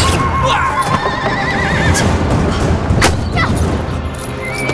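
Horses whinnying, with one long wavering whinny about a second in, over hoofbeats and a few sharp cracks.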